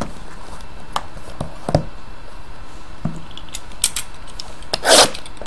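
Trading-card boxes handled on a table: a few light knocks as a hobby box is moved and set down, then a short, loud rustle near the end.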